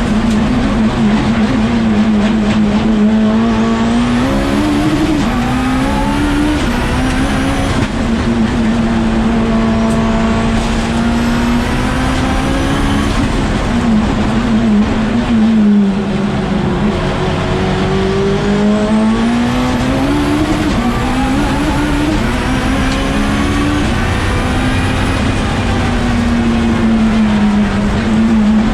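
Time attack race car engine running hard on track. Its pitch climbs and drops again and again as it accelerates, shifts gear and slows for corners, with one long fall and slow climb a little past halfway.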